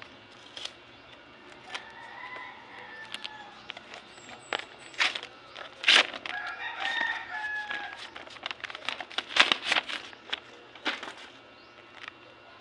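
A rooster crowing twice in the background, each crow a drawn-out call of a second or so, amid a scatter of sharp clicks and crackles, the loudest about six and nine and a half seconds in.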